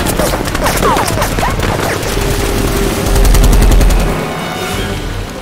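Battle sound effects: rapid automatic gunfire with several short falling whistles about a second in, then a loud, deep rumble around three to four seconds in, the loudest part, under continuing shots.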